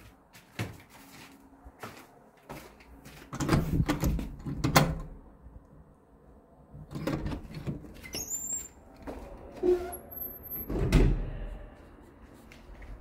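Door being worked by its metal lever handle: latch clicks and knocks, a brief high squeak, and a heavy low thump about eleven seconds in.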